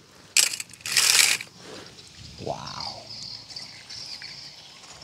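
Two loud clattering crunches of hard objects, a short one and then a longer one about half a second long, followed by a brief rising-then-falling tone. Faint steady insect chirring runs underneath.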